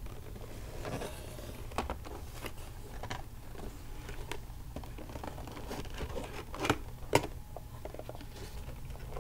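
Long fingernails tapping on a cardboard Funko Pop box: light, irregular clicks, with two sharper taps about two-thirds of the way through, over the steady low hum of a noisy phone recording.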